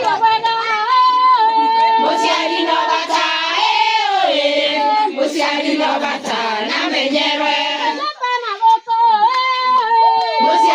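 Singing voices, holding long notes.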